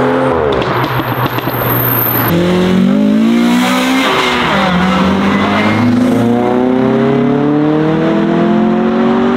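Modified car engine accelerating hard, its note changing suddenly about two seconds in and then climbing steadily for several seconds.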